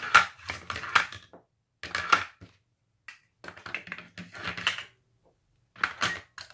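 Batteries being pushed into the battery housing of a WW2 BC-611 Handie Talkie radio: clicks and knocks in four short clusters, with pauses between.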